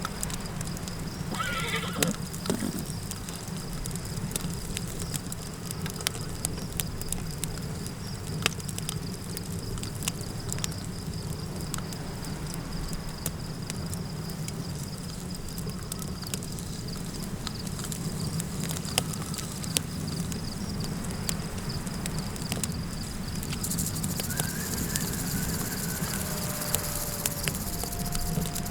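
Campfire crackling with irregular sharp pops over a low wind rumble, with a thin steady high insect-like tone. A short wavering animal call sounds about two seconds in, and fainter wavering calls come near the end.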